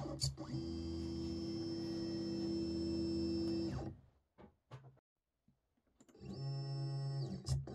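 Stepper motors of a Zonestar Z6F 3D printer converted to a pen plotter, making rapid belt-driven travel moves: a steady whine for about three seconds, a pause of about two seconds with a couple of faint clicks, then a shorter move whose pitch ramps up, holds and ramps down as it speeds up and slows, ending in a click.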